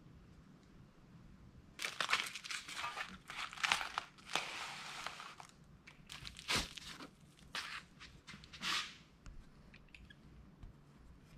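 Clear plastic sleeves and packaging crinkling and rustling in irregular bursts as flat metal prints are handled, with one sharp tap about six and a half seconds in.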